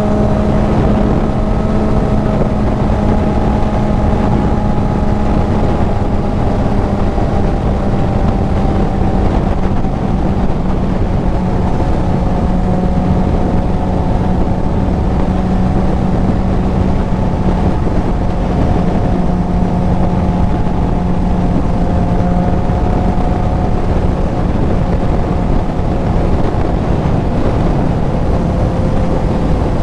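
Kawasaki Z900 inline-four with a CS Racing full exhaust running at a steady cruise, its engine note holding a nearly constant pitch, with wind noise over the helmet microphone.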